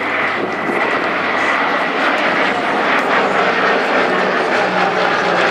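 Consolidated PBY-5A Catalina flying past overhead, its two Pratt & Whitney R-1830 Twin Wasp radial engines running steadily. The sound grows a little louder over the first couple of seconds, then holds.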